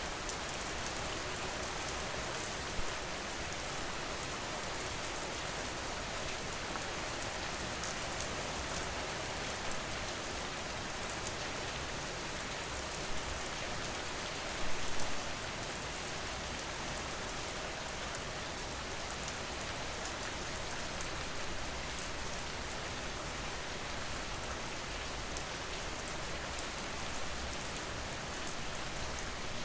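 Steady rain falling on a surface, an even hiss of drops, with a brief louder patter about halfway through.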